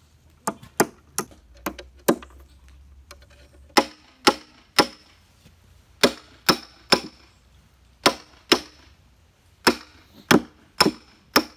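A hatchet used as a hammer striking metal, tapping clips onto the ends of a steel axle rod: about eighteen sharp blows in short runs of two or three, each with a brief metallic ring.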